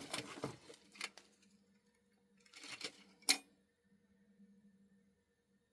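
Small metal odds and ends clinking and rattling in a junk box as they are sorted by hand, with a sharp click a little past three seconds in. A faint steady low hum is left in the quiet second half.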